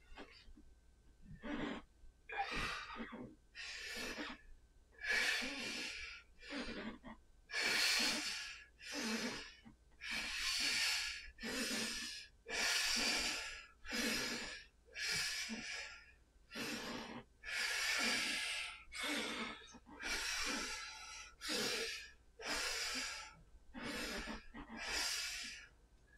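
A man breathing hard and fast from the exertion of clubbell swings, loud breaths in and out a little more than once a second, keeping an even rhythm.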